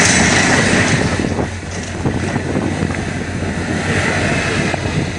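Boat hull being broken up by a Solmec excavator's grapple: continuous noisy crunching and rushing of wreckage over the machine's steady engine hum. It dips briefly about a second and a half in, then goes on.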